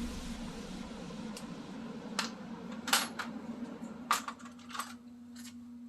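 A steady low hum with about seven sharp clicks and light taps scattered through it, cutting off abruptly at the end.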